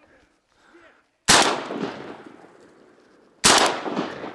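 Shotgun fired twice at flying ducks, the shots a little over two seconds apart, each echoing and dying away.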